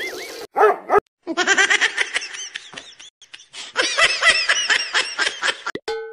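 Small dog yapping rapidly, several barks a second, starting about a second in and continuing almost to the end, with a short wobbling whistle tone at the start and a brief steady beep near the end.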